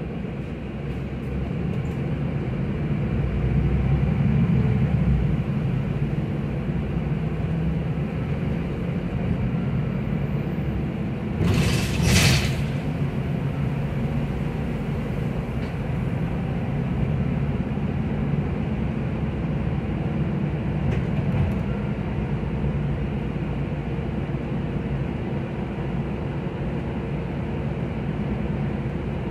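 Solaris Urbino 12 III EEV city bus heard from on board: engine and running gear rumble steadily, swelling a few seconds in. Partway through comes a short hiss of air, about a second long.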